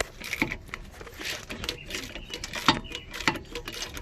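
Irregular metallic clicks and clanks from hand tools, sockets and bolts being handled while a wheel hub bearing is fitted, with two sharper knocks in the second half.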